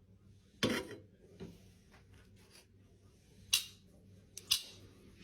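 A few short, sharp clicks over quiet room tone: one near the start, a fainter one a moment later, another past halfway, and two close together near the end.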